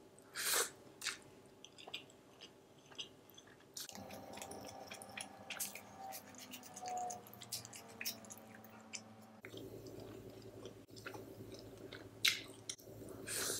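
Close-miked chewing of a mouthful of chicken biryani, with wet smacking mouth clicks and the squish of fingers mixing the rice. A few louder smacks stand out about half a second in and near the end.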